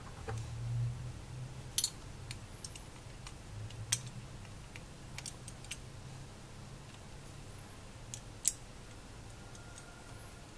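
Small HMS Beyblade parts clicking and tapping as they are handled and fitted together. A scattering of sharp clicks, the loudest about two, four and eight seconds in, over a faint low hum.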